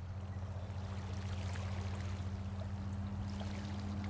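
Steady low drone with a faint hiss behind it.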